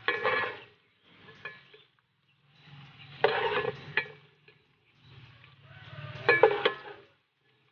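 Hot frying oil sizzling in bursts as a wire mesh strainer scoops fried chicken innards out of a deep pan. The metal clinks sharply against the pan, loudest about four and six and a half seconds in. There are four bursts with short quiet gaps between them.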